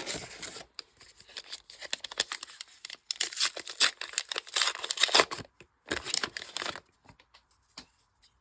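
Foil trading-card booster pack wrapper being torn open and crinkled, in several crackly bouts over the first seven seconds, then a few faint handling ticks.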